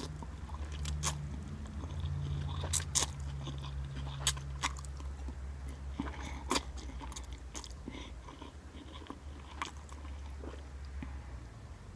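A person slurping and chewing instant cup noodles close to the microphone, with short sharp mouth smacks and clicks every second or so, over a steady low hum.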